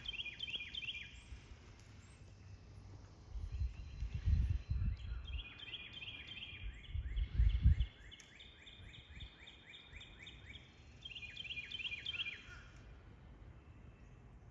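A songbird singing repeated series of quick, downward-slurred whistled notes, with one long run through the middle and a short run near the end. Two bursts of low rumbling, about four and seven seconds in, are louder than the song.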